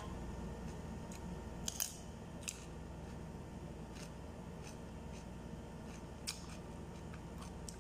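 Chewing a mouthful of raw carrot and cucumber: a few short, sharp crunches spaced a second or more apart, over a faint steady hum.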